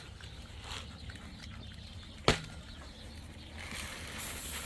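Outdoor farmyard sound: a steady low rumble with a single sharp knock about two seconds in and a hissing rustle near the end.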